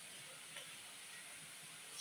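Faint steady hiss of the stovetop, a gas burner lit under a hot frying pan, with a light click about half a second in.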